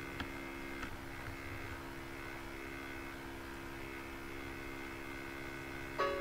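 Steady electrical mains hum picked up by the recording microphone, a buzz made of several steady tones, with a couple of faint clicks near the start and a short, louder sound near the end.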